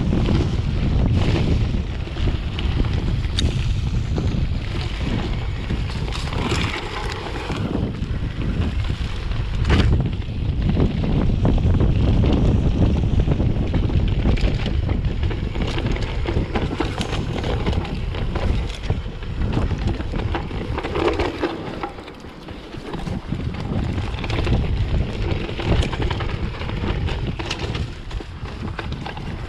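Wind buffeting the microphone of a Focus SAM mountain bike running fast downhill, with tyre rumble on the dirt and scattered knocks and rattles as the bike hits roots and rocks. The noise drops briefly about two-thirds of the way through.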